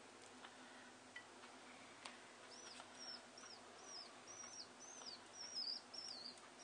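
Common house martin nestling calling: a series of faint, short, high chirps, each rising and falling, about two a second. They start a couple of seconds in and come closer together toward the end.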